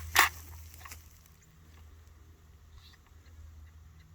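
Rifle being handled during loading: one sharp clack about a quarter second in, then faint small clicks and rustling over a steady low hum.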